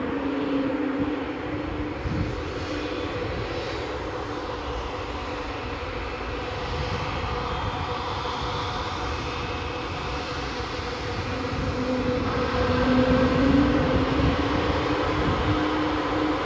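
Airbus A220's Pratt & Whitney PW1500G geared turbofan engines at taxi power as the jet turns on the runway: a steady jet hum with a low droning tone, growing louder about twelve seconds in.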